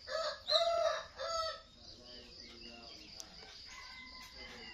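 A rooster crowing once, in three drawn-out parts over the first second and a half, with a faint steady high trill behind it.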